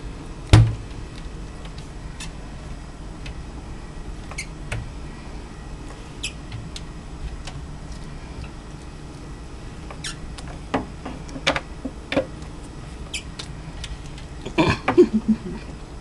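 Pet minks scrabbling and rummaging inside a cupboard: scattered light clicks and knocks, with a loud knock about half a second in and a flurry of knocks and scuffles near the end.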